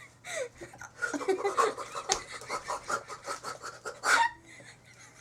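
A person with hiccups panting in a quick run of short breathy sounds, then a single loud, sharp hiccup about four seconds in.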